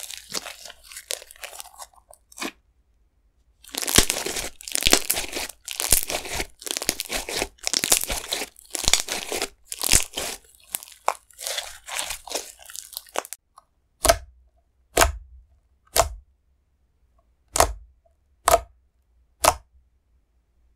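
Slime being squeezed and stretched by hand, a dense run of crackly clicks and pops. Near the end come six separate sharp pops about a second apart.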